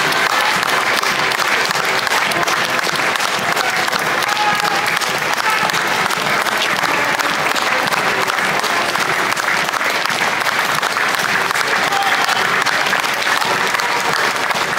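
A crowd of spectators applauding steadily, a dense patter of many hands clapping.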